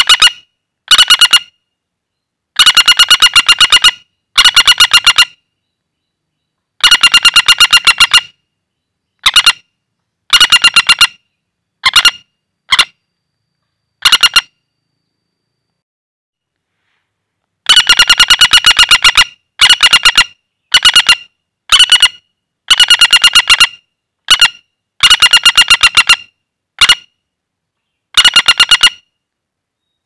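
Flameback woodpecker held in the hand, giving loud, rapid rattling calls: short bursts of fast, even notes repeated many times, with a pause of about three seconds midway.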